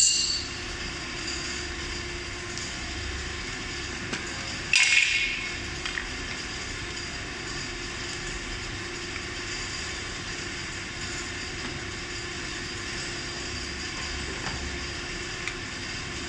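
Electric scooter parts being handled and fitted by hand during reassembly: a sharp clattering knock about five seconds in, a few light clicks later, over a steady background hiss.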